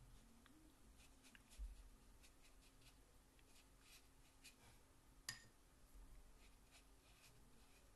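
Faint, repeated strokes of a watercolour brush on paper, with one sharper click a little over five seconds in.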